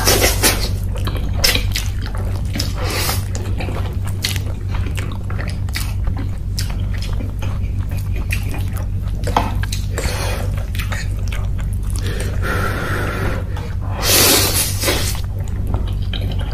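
Close-miked mukbang eating: chewing and many short, wet mouth clicks as instant noodles are eaten, with a steady low hum underneath.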